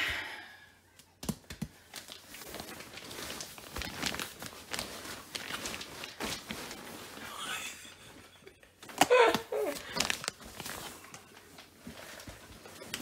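Heavy plastic-wrapped mattress being pushed and pulled along the floor: the wrapping crinkles and scrapes, with scattered knocks and bumps, and a louder scuffle about nine seconds in.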